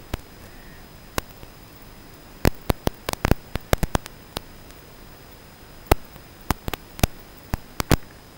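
Steady radio static hiss with a faint high whine, broken by a scatter of sharp, irregular clicks, bunched about two to four seconds in and again near the end, as heard on the audio of an analog FPV goggle recording.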